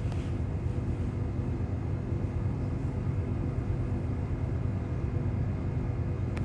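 A steady low rumble and hum that does not change.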